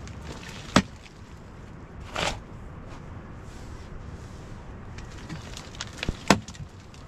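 A few sharp knocks: one about a second in, then two close together near the end, the last the loudest, with a short scraping rustle between them, over a low steady background noise.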